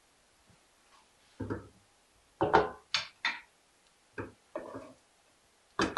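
A spoon knocking and scraping against a metal cooking pot while cooked rice is stirred and fluffed: several separate knocks starting about a second and a half in.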